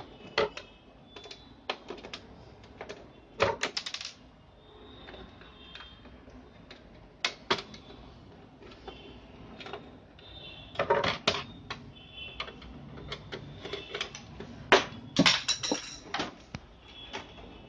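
Scattered sharp clicks and knocks from a laser printer's plastic casing being handled: a screwdriver works a rear-cover screw, then the printer is lifted, turned and shifted. The clicks come in small clusters a few seconds apart, the loudest about four, eleven and fifteen seconds in.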